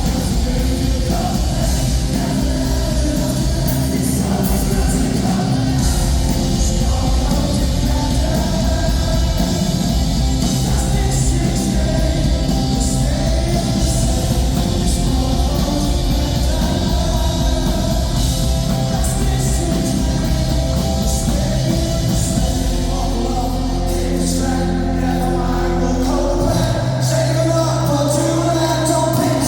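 Rock band playing live with a singer, loud and steady; from about two-thirds of the way through, the bass settles into long held low notes.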